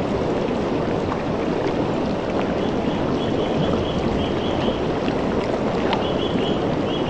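River water flowing steadily over rocks, a constant full rushing noise. Over it a bird gives quick runs of short high chirps, about three seconds in and again near the end.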